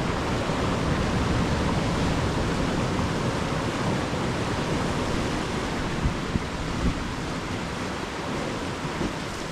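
Ocean surf washing ashore, a steady rush of breaking waves that swells about a second in and slowly eases off, with a couple of brief low thumps about six and seven seconds in.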